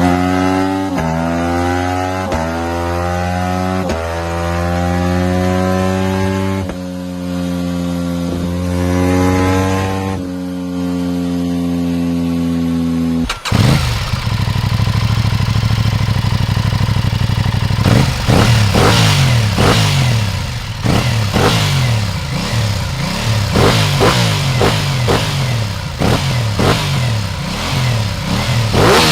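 Aprilia 660 parallel-twin motorcycle exhaust. It accelerates hard up through several gears, the pitch climbing and then dropping at each shift. After a sudden cut about halfway through, a bike is revved again and again in quick rising and falling blips.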